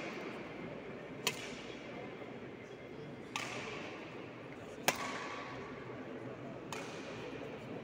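Badminton rally: four sharp racket strikes on a shuttlecock, about one and a half to two seconds apart, each ringing briefly in a large hall, over a murmur of voices.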